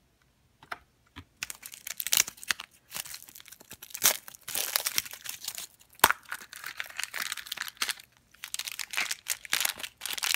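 Clear plastic wrapper on a toy blind-box pumpkin crinkling and tearing as it is unwrapped by hand, then a blind bag being opened. A few light clicks come first, then continuous crinkling and crackling from about a second and a half in, with one sharp snap about six seconds in.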